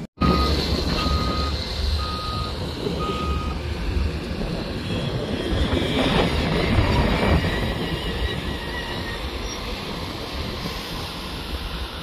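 Construction machinery running, with a reversing alarm beeping four times, about once a second, over the first few seconds, then the machinery carrying on alone.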